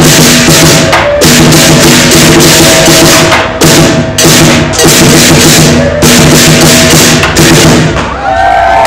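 Traditional lion dance percussion: a big drum with clashing cymbals and gongs, struck in a loud, driving, continuous rhythm that stops shortly before the end.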